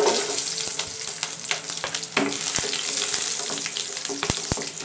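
Chopped shallots sizzling in hot oil with mustard seeds in a steel kadai, loudest as they go in, with scattered crackling pops. A wooden spatula stirs them, knocking twice against the pan near the end.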